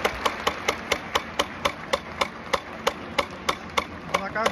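A stadium crowd clapping in unison to a steady fast beat, about four claps a second, as supporters' rhythmic clapping.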